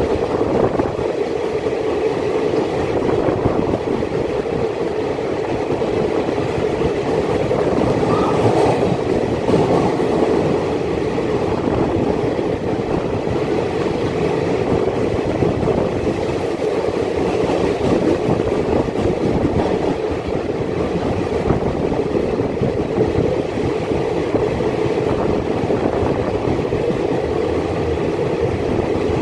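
Passenger express train coaches running steadily at speed, with a continuous rumble and rush of wheels on the rails heard from an open coach doorway.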